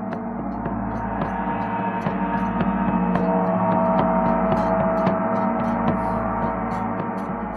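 Ambient soundtrack music: sustained, ringing gong-like tones layered over a deep drone, with a light ticking pulse of about three ticks a second. It swells to a peak about halfway through, then eases off.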